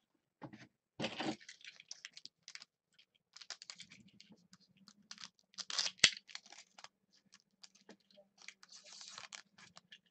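Foil wrapper of a 2013 Panini Crown Royale football card pack crinkling and rustling as it is handled, in scattered short crackles and clicks, with a louder crinkle about six seconds in.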